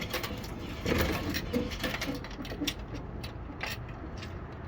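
Vendo vending machine mechanism running as it vends a bottle, with a series of sharp clicks and clunks.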